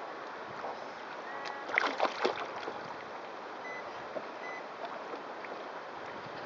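Choppy sea water lapping and splashing against a sit-on-top kayak hull, with a brief cluster of sharp slaps about two seconds in.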